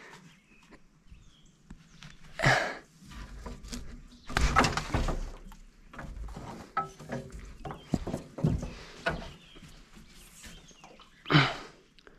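Scattered knocks, bumps and rustles of someone moving about on a boat deck and handling gear, uneven in timing and loudness, with a sharper, louder sound near the end.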